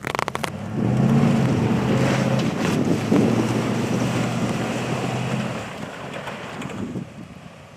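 Nissan Titan pickup's engine running hard under load while off-roading in snow, with a rushing noise over it. A quick rattle of knocks comes at the start; the engine comes up about a second in, holds a steady pitch, and eases off after about five seconds.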